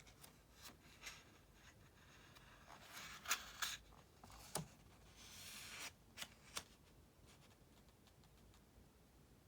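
Paper rustling and light ticks of a printed book being handled, a page turned with a crackly rustle and a smooth sliding swish, and a soft knock about four and a half seconds in.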